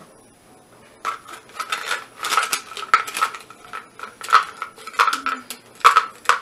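Small hard pieces rattling and clinking inside a handheld plastic container, in quick irregular clicks that start about a second in, as the container is shaken and rummaged.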